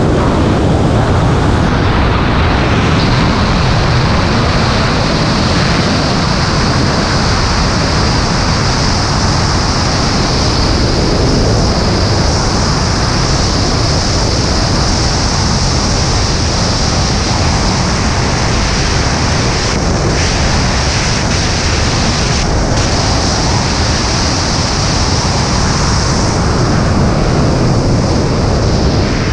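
Loud, steady rush of wind buffeting the helmet camera's microphone as a BASE jumper flies at high speed in freefall.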